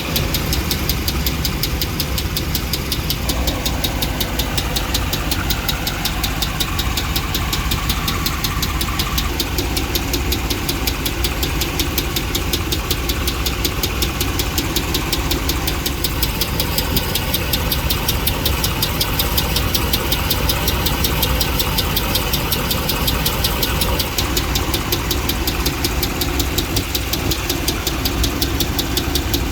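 2009 Dodge Ram's 5.7 L Hemi V8 idling with a steady, rapid ticking, a sign of a failed lifter on cylinder 3, which the inspector takes for a lifter and camshaft failure.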